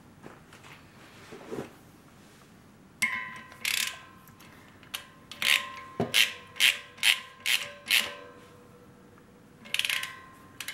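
Socket ratchet on an extension bar clicking in short runs as it is worked back and forth, tightening the fusible plug into a miniature traction engine's boiler. A faint metallic ring hangs under the clicks.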